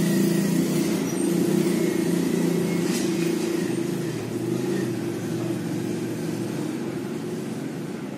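Steady low rumble with a faint hiss above it, slowly growing fainter.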